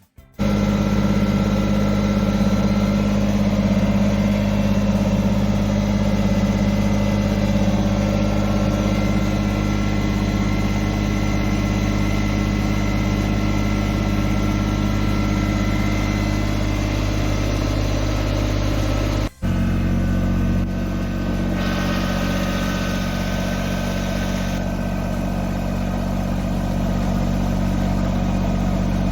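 Kubota BX25 compact tractor's three-cylinder diesel engine running steadily under work. The sound cuts out for a moment about two-thirds of the way through and comes back at a slightly different pitch.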